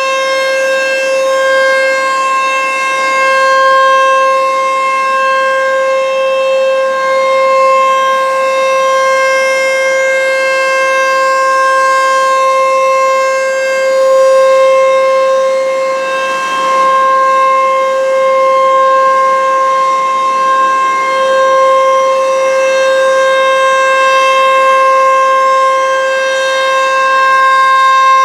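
ASC T-135 AC/DC electronic outdoor warning siren sounding a loud, steady single-pitch tone, swelling and fading in loudness every few seconds.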